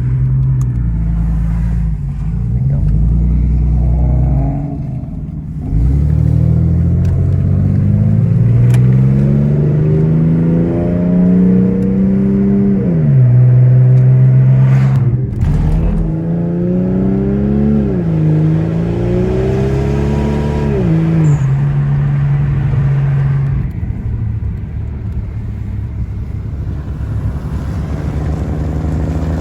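Single-turbo (HX35) Nissan Skyline R33 engine pulling through the gears. Its pitch rises steadily and drops sharply at upshifts about 13, 18 and 21 seconds in, then it settles back to a steady cruise.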